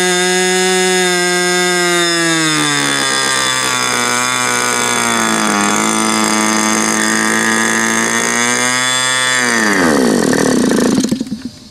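OS 61SF ringed two-stroke glow engine turning an APC 12x6 propeller at full throttle, near 11,000 rpm, throttled back about two seconds in to around 6,800 rpm. Near the end it is shut down and its pitch falls away as it stops. The low-speed mixture is a little on the rich side.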